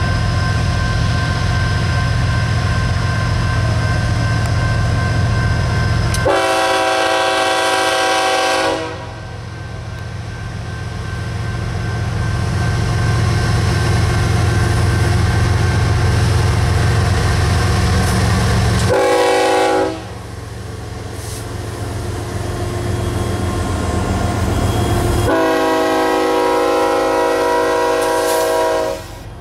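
Diesel freight locomotives, a GE ES44C4 leading an EMD SD60M and SD40-2, rolling past with a steady deep rumble. The lead locomotive's air horn sounds three times: long, then short, then long.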